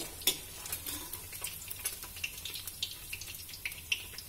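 Hot oil in a kadai crackling and sizzling with irregular pops as fried paneer cubes are scooped out with a perforated metal ladle, with a clink near the start.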